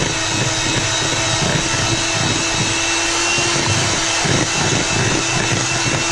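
Electric hand mixer running steadily at a constant whine, its beaters whisking cake batter in a plastic bowl.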